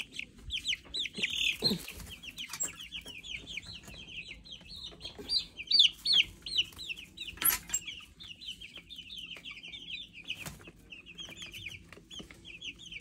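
A brood of week-old meat chicks peeping without a break, many short falling cheeps overlapping. A few brief knocks and rustles cut in, about two, seven and ten seconds in.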